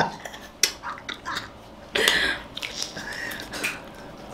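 Someone biting and eating a frozen chocolate-coated ice-cream bar close to the microphone: wet mouth smacks and a few short, sharp clicks, the sharpest about half a second in.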